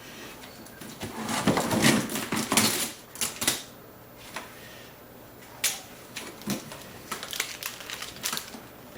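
Hard clicks and knocks from objects being handled, with a busier stretch of rustling clatter in the first few seconds and a run of lighter clicks near the end.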